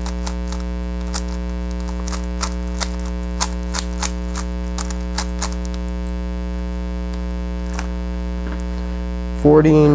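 Plastic GAN 356 RS speedcube layers being turned in quick, irregular clicks during a solve, fading out after about six seconds, over a steady electrical mains hum that is the loudest sound.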